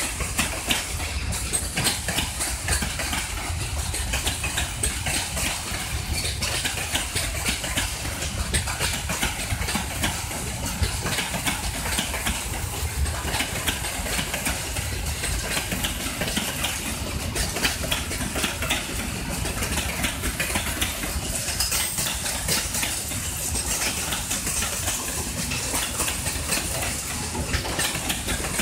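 Freight train of open wagons rolling past: a steady low rumble of wheels on rail with a continual light clatter.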